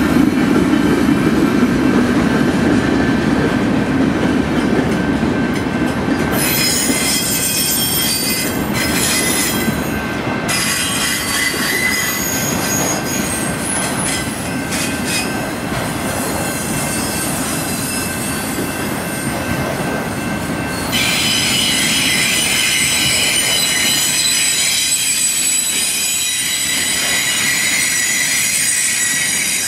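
Freight cars (boxcars, then autorack cars) rolling past with a steady rumble of steel wheels on rail. High-pitched wheel squeal comes in about six seconds in and grows louder about twenty seconds in.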